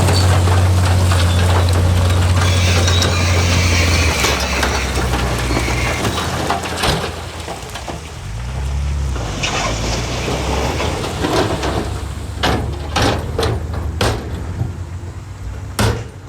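Heavy diesel construction machinery running with a steady low drone that drops to a lower, uneven note about four seconds in, followed by a series of sharp knocks and clanks in the last few seconds.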